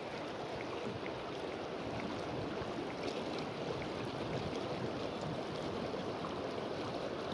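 A shallow river's current flowing and rippling past the bank: a steady, even rush of water.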